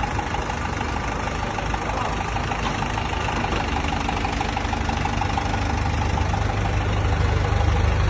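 Construction machine's engine running steadily, its low rumble growing louder toward the end.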